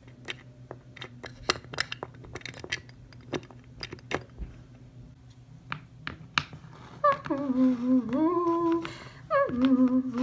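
A woman humming a slow, wavering tune, starting about seven seconds in, with a short break just after nine seconds. Before it, only scattered light clicks and taps over a low steady hum.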